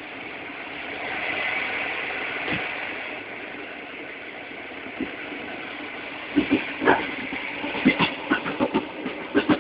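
Train running, heard from inside the carriage: a steady rumble and hiss, then from about six seconds in a quick, irregular series of wheel clacks over rail joints.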